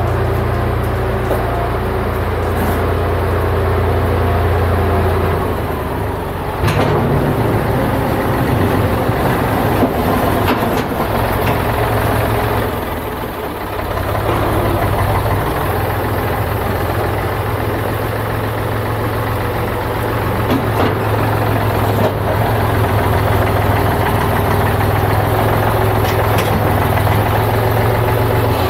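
Farm tractor engine running steadily under a front-end loader working a bucket of sawdust. The engine note shifts about six and a half seconds in and dips briefly around thirteen seconds.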